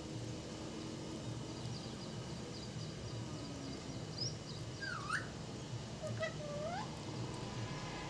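Pet parrot giving a few short calls that dip and then rise in pitch, starting about halfway through, with faint high chirps just before them.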